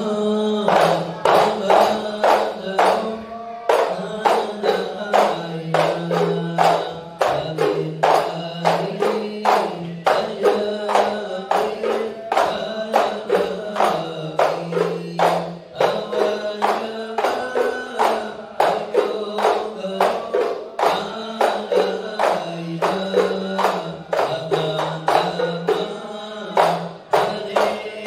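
Hand-held frame drums (terbang) beaten together in a fast, steady rhythm, with men's voices chanting sholawat in unison over them, stepping between a few held notes: ISHARI-style hadrah.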